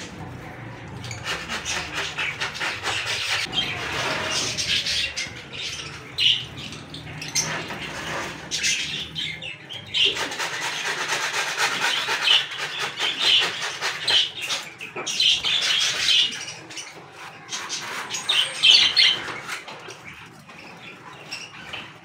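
Lutino Fischer's lovebirds chattering: a dense run of rapid high chirps and squawks in repeated bursts, dying down near the end.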